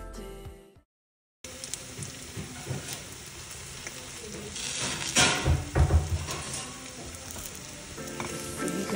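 Besan cheela (gram-flour pancake) sizzling in a nonstick frying pan, with a spatula knocking and scraping against the pan; the knocks are loudest around the middle. Background music fades out just before the sizzling starts and comes back near the end.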